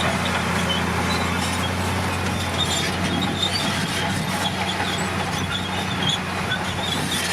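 Komatsu crawler bulldozer's diesel engine running steadily, with scattered short high squeaks over it.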